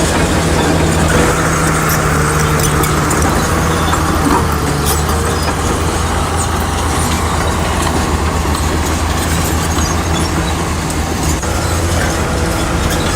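Bulldozer diesel engine running steadily, with a high squeal over it for the first few seconds and faint metallic clinks throughout.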